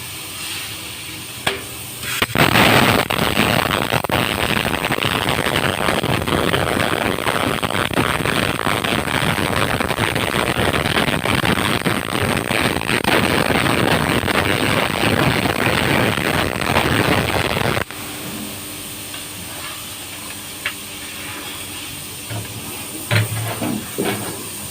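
MIG welding arc crackling steadily on an overhead weld. It starts about two seconds in and stops abruptly after about fifteen seconds. A few short knocks follow near the end.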